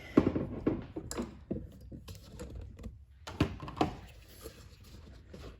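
Irregular small clicks and knocks of things being handled, with a few louder knocks and soft rustling between them.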